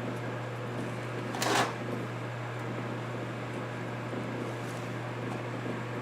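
Steady low electrical hum at the repair bench, with one short hiss about one and a half seconds in as solder is cleared from a circuit-board joint.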